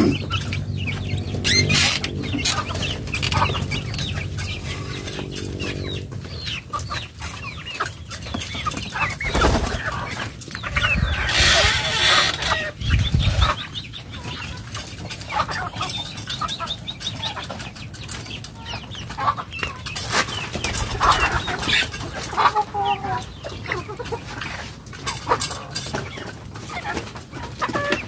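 Domestic chickens clucking in bamboo coops, with scattered knocks and rustling. A steady low hum runs through the first six seconds, and a louder rustling burst comes about halfway through.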